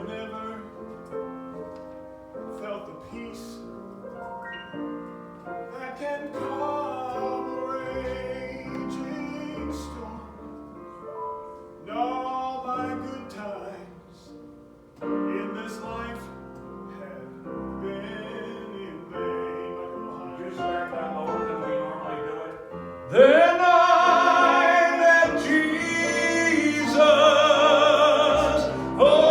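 Gospel song with piano accompaniment and singing. About 23 seconds in, the singing swells much louder into long held, wavering notes.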